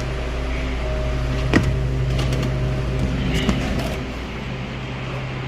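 Steady low mechanical hum, with a sharp click about a second and a half in and a lighter knock a couple of seconds later.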